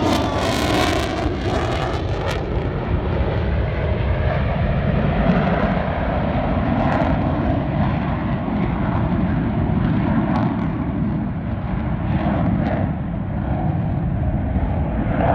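Fixed-wing aircraft engine running steadily and loud as the plane flies at low speed overhead.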